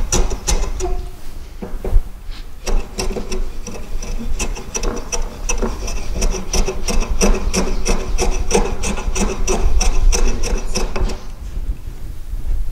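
Hand plane cutting along the edges of wooden boards in a quick series of short strokes. It is shooting the edges with the blade set fine, each stroke run towards the centre so the edge grain does not tear out. The strokes thin out about eleven seconds in.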